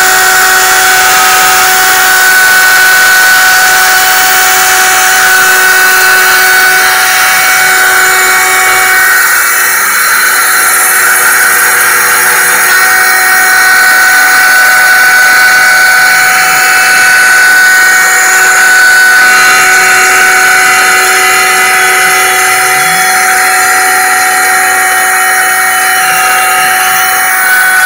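CNC router spindle running at high speed, its end mill cutting aluminum plate: a steady whine of several pitches over a constant hiss of cutting.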